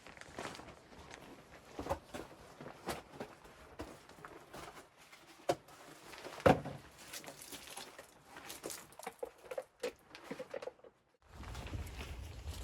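Irregular crunches, taps and knocks of someone moving about and handling things, the loudest about six and a half seconds in. Near the end a steady low rumble sets in.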